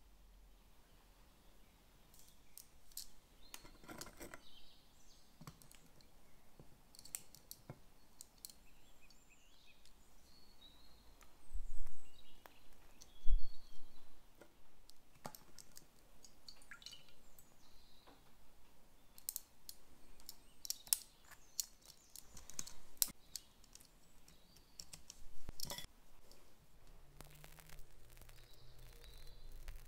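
Scattered light clicks and taps of kitchen handling: silicone-tipped tongs and soaked ladyfinger biscuits being set down on parchment paper, with a few louder knocks about twelve and thirteen seconds in. Faint bird chirps in the background.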